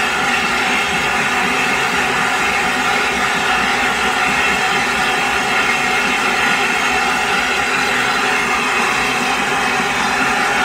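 Steam locomotive standing still, its steam hissing steadily with a constant whistling edge and no exhaust beats.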